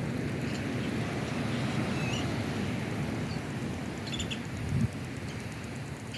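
A steady low rumble, like wind on the microphone, with a few short bird chirps over it about two seconds and about four seconds in, and a single dull thump just before the five-second mark.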